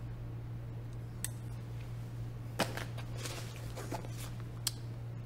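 Quiet room tone with a low steady hum, and a few faint clicks and rustles of gear being handled as hands rummage in a bike's handlebar bag.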